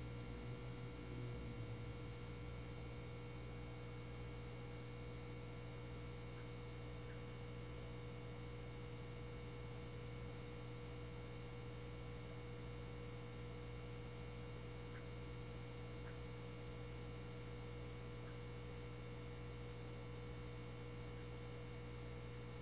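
Steady electrical hum with several constant tones over a faint hiss, the sound of an aquarium fish room's running equipment.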